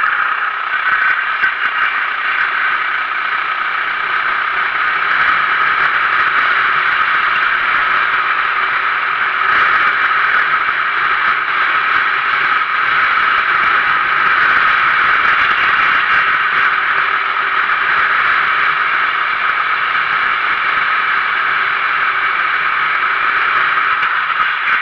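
Sodi RT8 racing kart with a 390cc engine, heard from its own onboard camera while lapping at race speed: a loud, steady mix of engine and rushing noise with little change in pitch.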